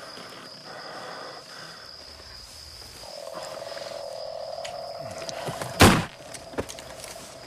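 Night chorus of frogs trilling over a steady high insect drone. About six seconds in, a single sharp gunshot cuts through, by far the loudest sound.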